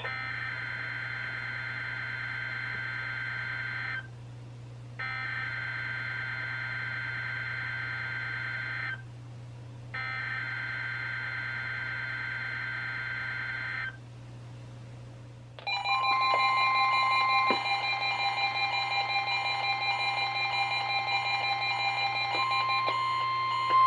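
NOAA Weather Radio SAME alert header: three bursts of screechy digital data tones, each about four seconds long with a second's pause between them. Then several weather radios go off together in a chorus of overlapping steady alarm tones and pulsing beeps, which grows louder near the end.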